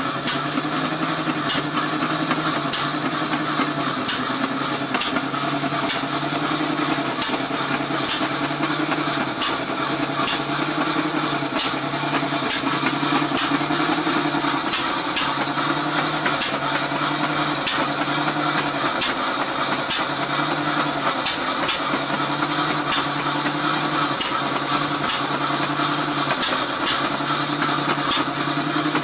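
A 1913 IHC Famous 1 hp hit-and-miss engine running and belt-driving an 1880s Eagle ten-saw cotton gin. It makes a steady mechanical clatter, with a low hum that pulses on and off about once a second.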